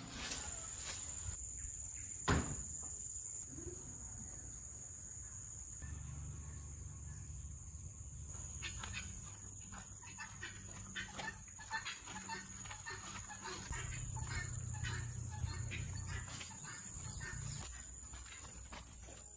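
Rural yard ambience: chickens clucking and insects droning at a steady high pitch, with a single sharp knock about two seconds in. A low rumble comes and goes twice, and light clicks and rustles of handling are scattered through the second half.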